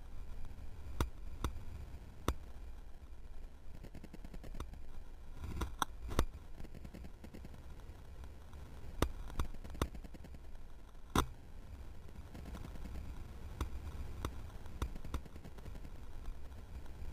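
Skiing through deep powder: a steady low muffled rumble of motion and wind, with irregular sharp knocks and clicks scattered through it, the loudest about eleven seconds in.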